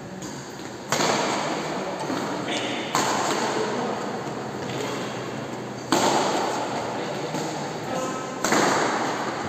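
Badminton rackets striking a shuttlecock during a doubles rally: four sharp hits a few seconds apart, each followed by a long echo off the hall's bare walls. Brief shoe squeaks on the court mat come in between.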